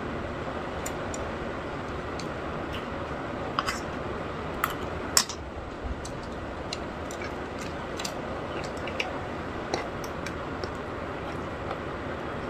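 Close-miked eating: scattered small clicks and crackles of chewing and handling food, with a few sharper cracks about four to five seconds in, over a steady background hum.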